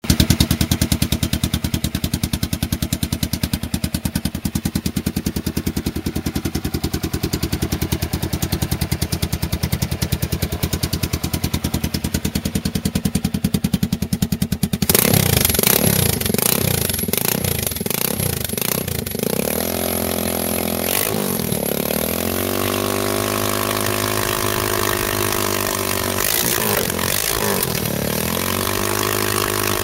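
Single-cylinder engine of an MZ 660 Baghira running through a custom gatling-gun-style silencer. For the first half it idles in a fast, even train of exhaust pulses. About halfway it is revved several times with rising and falling pitch, then held at a steadier, faster run, with one more blip near the end.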